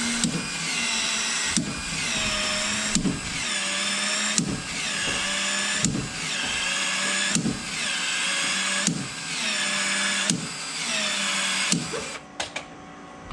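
PEX expansion tool cycling over and over, its motor running in even strokes about every one and a half seconds with a click between each, as it stretches the end of a cross-linked PEX-A pipe and its ring. The motor stops about a second before the end.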